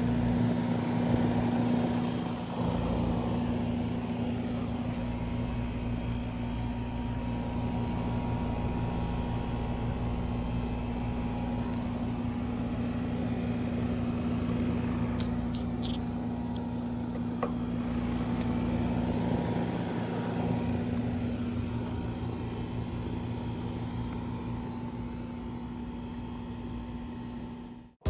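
RunTru central air conditioner condensing unit running: a steady hum from the compressor and condenser fan, with a few light ticks about halfway through.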